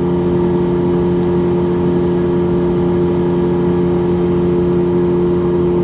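Fishing boat's outboard motor running steadily at cruising speed, an even, unchanging engine note with a low rumble underneath.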